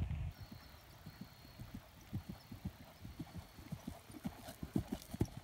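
Horse's hooves thudding on grass turf at a canter, a quick rhythmic run of dull hoofbeats growing louder toward the end. A brief wind rumble on the microphone at the very start.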